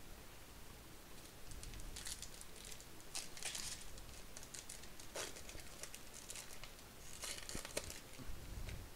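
Wrapper of a Topps baseball card pack crinkling and tearing as it is pulled open by hand, in several short bursts.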